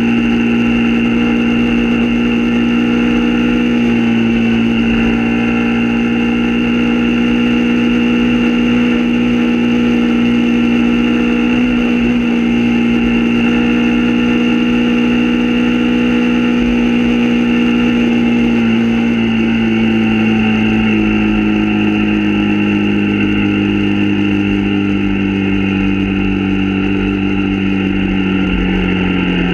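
Motorbike engine heard from the rider's own bike, running at a steady cruising pitch. About two-thirds of the way through, the pitch falls slowly as the bike eases off and slows.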